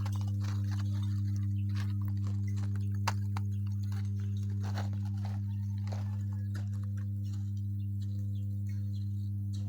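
Power transformers in an energized 330 kV switchyard humming: a steady, deep electrical hum with fainter higher overtones. A few faint clicks sound over it, one sharper about three seconds in.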